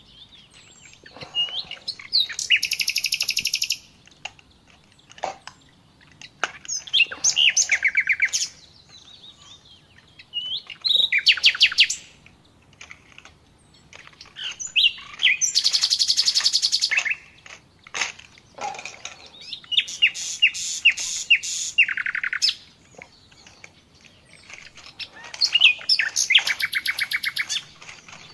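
A small songbird singing: six bursts of rapid, high chirping trills, each one to two seconds long, about every four seconds.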